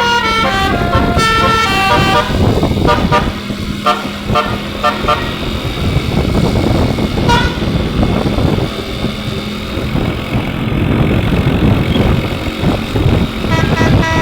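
An Indonesian bus's telolet musical horn playing a quick melody of stepped notes for the first few seconds. After that come bus engine and traffic noise with a steady low hum, and one short horn note about seven seconds in.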